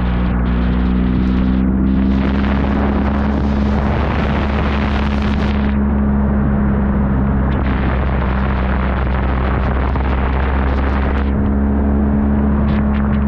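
Motorcycle engine running at a steady cruise under loud wind noise on the microphone, with tyre hiss from the wet road. The engine note holds nearly level, drifting slightly in pitch.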